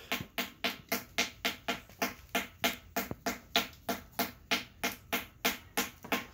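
A small mallet knocking on a sheet of ice frozen in a plastic sandbox, struck rapidly and evenly about four times a second to break a hole through it.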